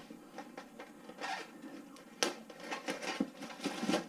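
Packaging being cut and handled: scraping and rustling with scattered clicks, and one sharp click a little over two seconds in.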